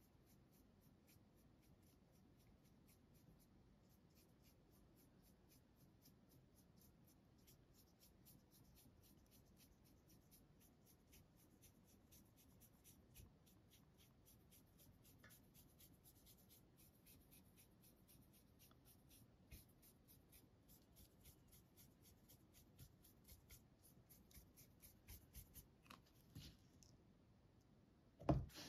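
Faint, repeated strokes of a shimmer brush pen on paper, near silence otherwise. Near the end a single knock, the loudest sound.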